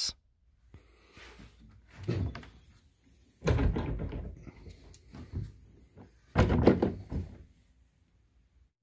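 Carpeted hatch lids on a jon boat's aluminum deck framing being handled and opened on piano hinges and gas struts, giving knocks and thuds. The loudest come about three and a half seconds in and again about six and a half seconds in.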